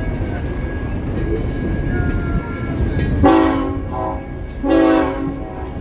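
Passenger train rolling past with a steady low rumble, then two blasts of the locomotive's horn a little past halfway, the first about a second long and the second a bit shorter.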